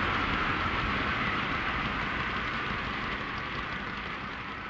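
Model OO gauge MGR coal hopper wagons rolling over the track, a steady rolling clatter of small wheels on rail that slowly fades as the end of the train moves away.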